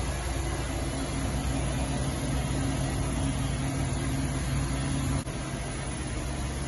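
Electric motor of a fabric-roll bias-cutting machine running with a steady hum, broken off abruptly about five seconds in.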